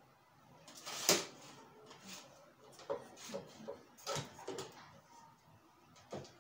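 Handling noises of a metal tripod light stand being adjusted: a sharp knock about a second in, then a scatter of clicks, taps and rustles, and one more click near the end.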